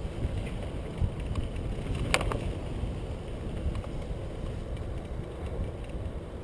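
Mountain bike rolling along a dirt singletrack: low tyre rumble and wind on the microphone, with a few light rattles and one sharp clack about two seconds in.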